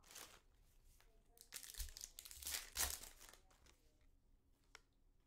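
Foil trading-card pack wrapper crinkling as it is picked up and torn open, in several short rustling bursts, the loudest tearing a little under three seconds in.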